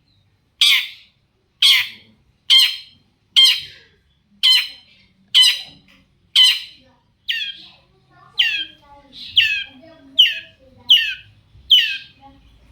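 Long-tailed shrike giving a steady series of harsh, rasping calls, about one a second, thirteen or so in all. From about halfway through, each call sweeps down in pitch.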